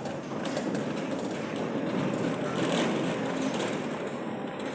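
Metal sliding gate rolling along its track: a steady rumble with rapid clicking and rattling of wheels on the rail.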